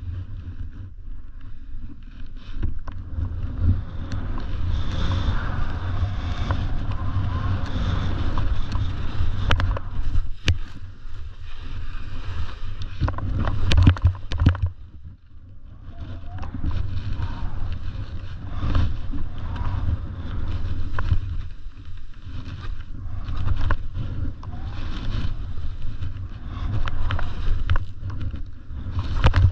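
Skis hissing and scraping through snow on a steep descent, under a steady low rumble of wind on the microphone, with sharp scrapes here and there and a brief lull about halfway through.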